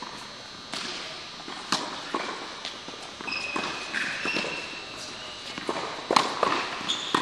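Tennis rally on an indoor court: rackets striking the ball and the ball bouncing, a string of sharp knocks with the loudest hit about six seconds in. A few brief high squeaks from tennis shoes on the court are heard in the middle.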